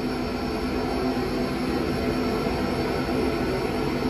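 Vacuum cleaner running steadily as its wand is drawn over a carpet: an even rush of suction with a low hum under it.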